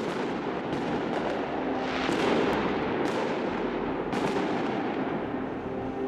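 Aerial fireworks bursting overhead: a string of sharp bangs, loudest about two seconds in, over a steady background din.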